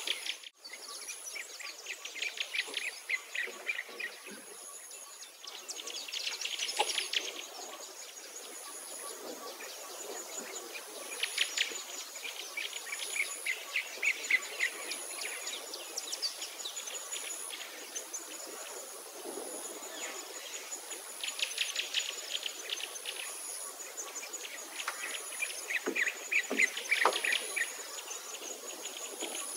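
Birds singing in rapid trills that recur every few seconds, over a steady, high-pitched, pulsing insect chirp.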